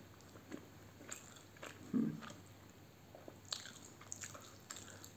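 A person eating with his fingers from a steel bowl: faint chewing and biting, with small clicks and crackles of fingers and mouth in the food. A short low thud about two seconds in is the loudest sound.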